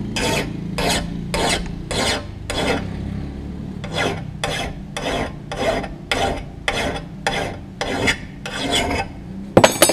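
Flat file being drawn by hand across the edge of an iron axe bit clamped in a vise, rasping strokes at about two a second with a short pause partway through, sharpening the edge. A couple of sharp knocks near the end.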